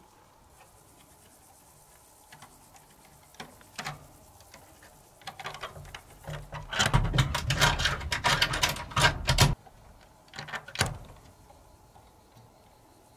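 Wire fastening on a wooden plank door being twisted and worked loose by hand: scattered clicks, then a few seconds of scraping, clicking and the door knocking and rattling in its frame, and a couple of sharp clicks near the end.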